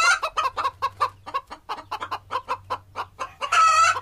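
Chickens cackling: a fast run of clucks, about six a second, with a longer drawn-out squawk near the end.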